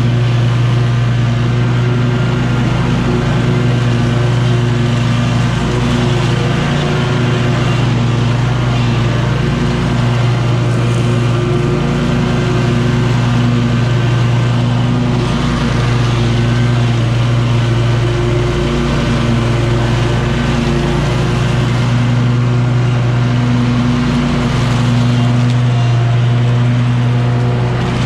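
2019 Scag V-Ride II stand-on commercial mower running steadily while mowing, its engine holding a constant speed with a steady hum and a few brief dips.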